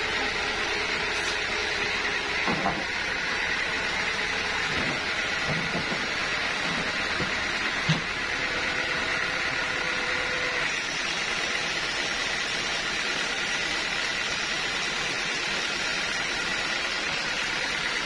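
Band sawmill machinery running steadily, not cutting, with a few dull knocks as a log is rolled into place on the carriage.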